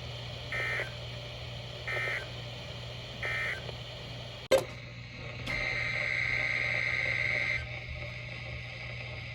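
NOAA Weather Radio SAME end-of-message data bursts: three short, buzzy digital chirps about a second and a half apart, marking the end of the weekly test broadcast. A sharp click follows, then a steady high tone for about two seconds.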